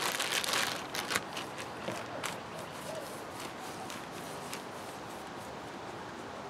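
Hands rolling a soft clay coil back and forth on a work surface: a few light taps and rustles in the first two seconds, then a faint, steady rubbing of palms and fingers on the clay.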